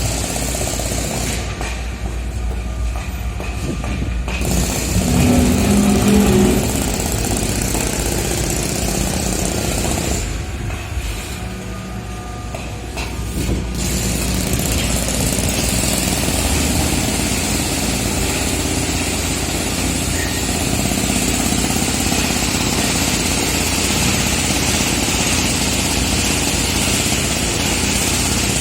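Heavy construction machinery running: steady engine noise that swells about five seconds in, drops back briefly a few seconds later, then holds steady.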